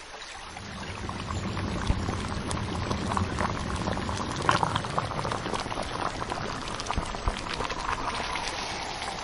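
Steady bubbling, running water with many small splashes and drips.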